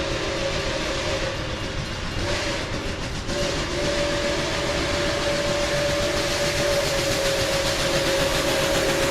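Train whistle held in a long, steady blast over a constant rushing noise, briefly breaking off about two seconds in before sounding again.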